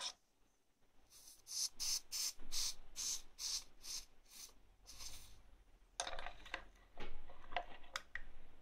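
Hot soldering iron tip wiped back and forth across the wet cleaning sponge of a Parkside PLSD 48 A1 soldering station, hissing with each of about ten quick strokes. Later the iron clicks and rattles as it is set back into its stand.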